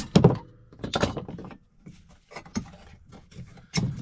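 Sharp knocks and clatter of PVC condensate drain pipe being cut and handled. The loudest strikes come at the start and about a second in, with a short ringing after the first.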